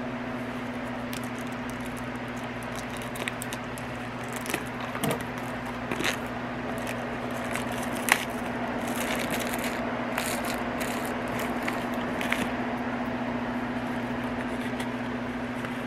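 The packaging of a diamond painting kit being handled and opened: scattered light clicks and rustles, with a steady low hum in the background.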